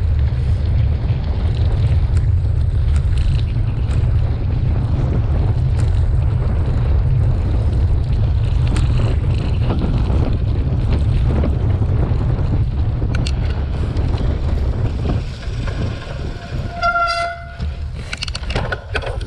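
Loud, steady low rumble of wind on the microphone and tyres on rough dirt as a cyclocross bike is ridden fast, easing a little after about 15 seconds. Near the end a short pitched hoot lasting about a second sounds, followed by a few sharp clicks.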